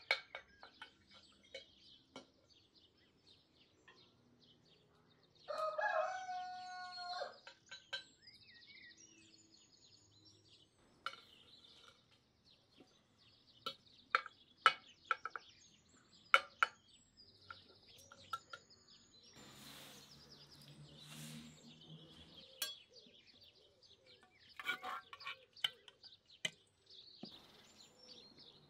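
A rooster crows once, a single call of about two seconds, some six seconds in, over small bird chirps. Scattered sharp clinks, likely a metal ladle against the cast-iron cauldron, come through the rest of the stretch.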